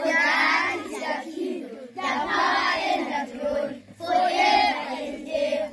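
A group of schoolchildren singing together in unison, in three phrases of about two seconds each with a short breath between them.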